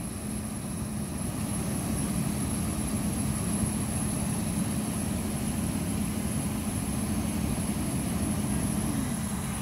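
A steady engine running with a constant low hum.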